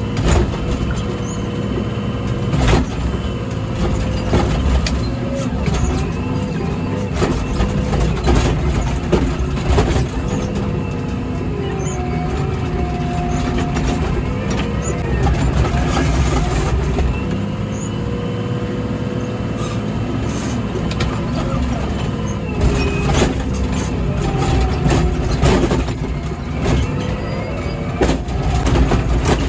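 Komatsu WA100 wheel loader's 4.9-litre diesel engine running under load while ploughing snow, heard from the cab. Its pitch rises and falls as it works, with scattered knocks and clunks from the machine.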